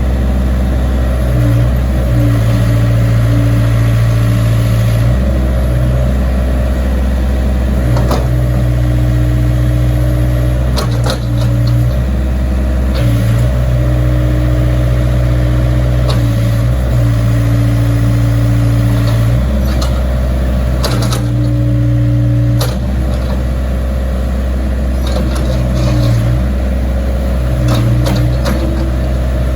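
Case backhoe's diesel engine running, its note shifting every few seconds as the load changes, with a few sharp knocks.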